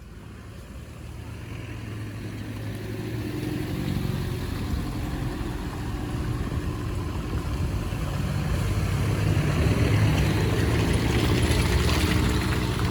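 A 4x4's engine running, growing steadily louder through the first ten seconds or so.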